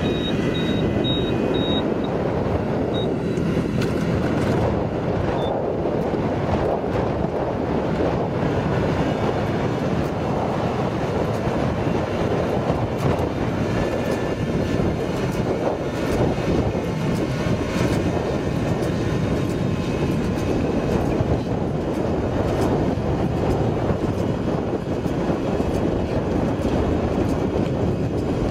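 Riding rice transplanter's engine and planting mechanism running steadily: a dense mechanical rumble with fine clatter.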